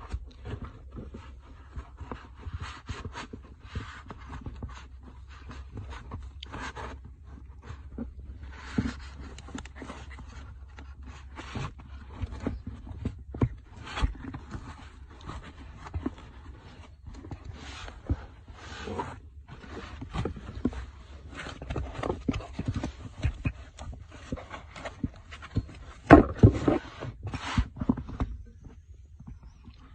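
Handling noise from a motorcycle rear monoshock and its packaging being unwrapped and turned over: irregular rustling and small clicks, with a louder run of knocks near the end, over a steady low hum.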